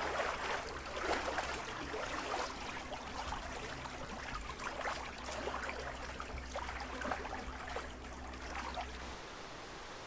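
Small waves lapping and splashing irregularly at a lakeshore, over a steady low rumble; both fall away about nine seconds in.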